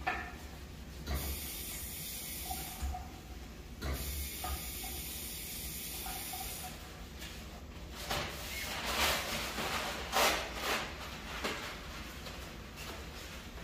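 A sponge scrubbing a bathroom sink basin with a steady hissing scrub. From about eight seconds in, a wad of paper towel wipes the mirror in quick rubbing strokes.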